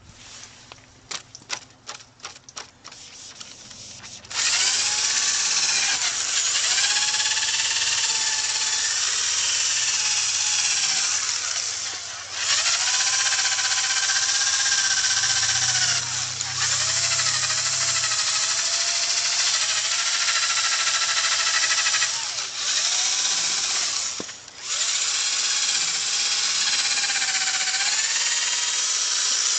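Power drill spinning a buffing pad against a plastic headlight lens with polishing compound. After a run of light clicks, the drill starts about four seconds in and runs in long spells with a few brief stops, its whine wavering in pitch.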